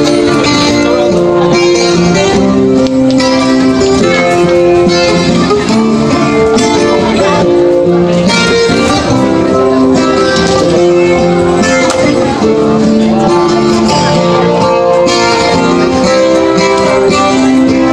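Background music led by plucked guitar, playing steadily at an even level.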